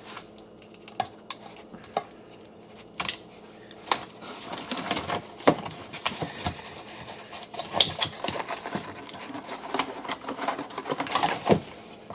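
Utility knife cutting cardboard packaging while the cardboard insert is pulled and rustled, with scattered sharp clicks and knocks. The handling gets busier and more continuous about four seconds in.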